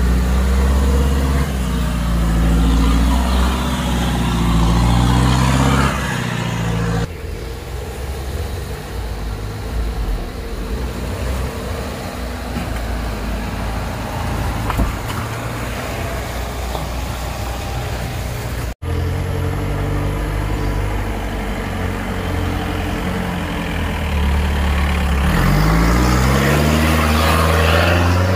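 Off-road 4x4's engine working hard under load, its pitch wavering. The sound changes abruptly twice, and near the end the revs rise sharply.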